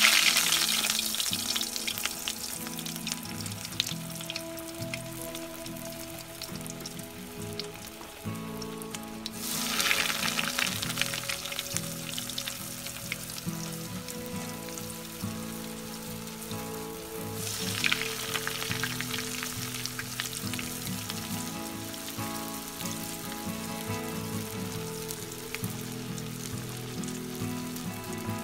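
Breaded bread rolls deep-frying in hot oil in a deep metal pan. Three times a roll goes into the oil: at the start, about ten seconds in and about eighteen seconds in. Each time there is a sudden surge of loud sizzling that settles back into a steady frying hiss.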